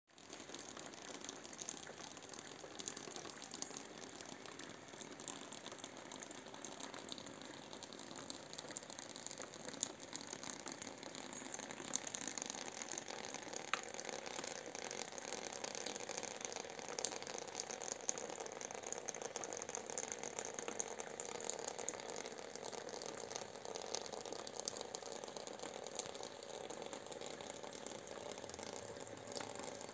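Meltwater trickling steadily, with many small scattered drips.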